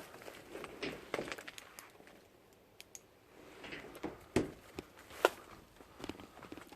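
Scattered light clicks and knocks with faint rustling, two sharper knocks about four and five seconds in.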